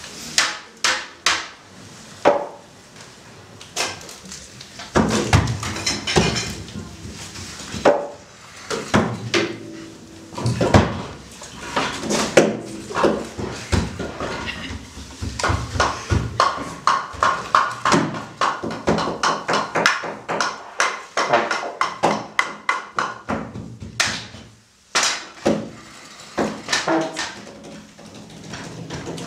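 Free-improvised music with irregular clattering and knocking from percussion and struck junk objects, and a stretch of wavering pitched tones in the middle.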